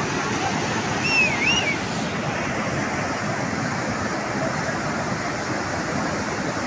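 Flash-flood water rushing steadily, a dense even noise. A short warbling whistle sounds about a second in.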